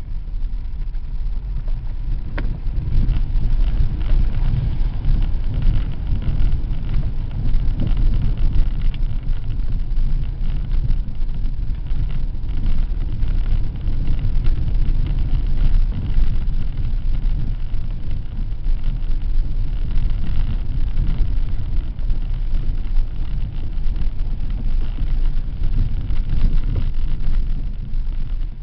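Steady low rumble of an off-road vehicle's engine and tyres on a wet dirt track, heard from inside the cabin, with one light knock about two seconds in.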